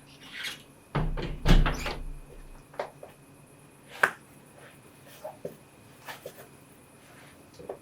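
A cluster of knocks and thuds about a second in, then a few sharp, short clicks and taps spaced out over the following seconds.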